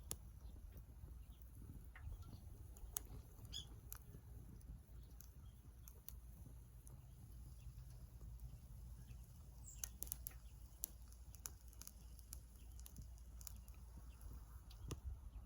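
Faint, sparse crackles and pops from small pieces of wood burning in a Sierra wood-burning camp stove, over a low steady rumble. The crackles bunch up about three seconds in and again near the middle.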